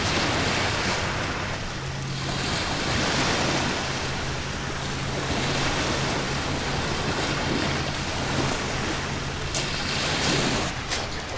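Waves breaking and washing up a shingle beach, with wind on the microphone. Near the end come a few sharp crunching steps on the pebbles.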